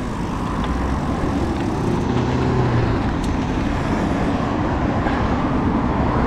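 Steady rushing wind and road noise on the microphone of a bicycle being ridden, mixed with the hum of motor traffic.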